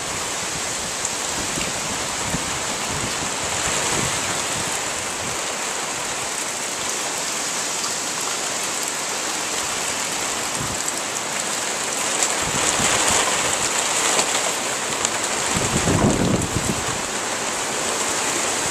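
Hurricane rain pouring steadily, with wind tossing the trees. The wind gusts harder about two-thirds of the way through, rumbling on the microphone.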